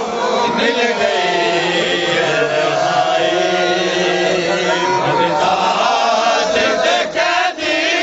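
Male chanting of a Punjabi Shia mourning lament, long held notes that slide slowly in pitch, with few pauses.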